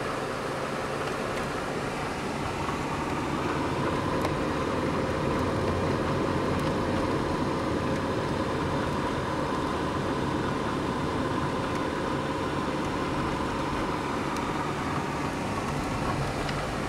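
Citroën car driving, its engine and tyre noise running steadily as heard from inside the cabin.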